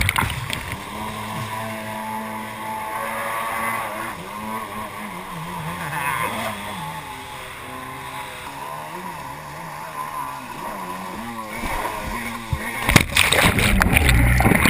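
Jet ski engine running, its pitch rising and falling as the throttle is worked. Near the end comes a loud rush of water with knocks as the craft goes under again.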